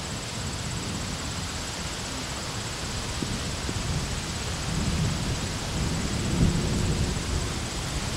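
Wind buffeting the camcorder's microphone: a low, gusty rumble over open-air background hiss, swelling about five seconds in and peaking a little after six seconds.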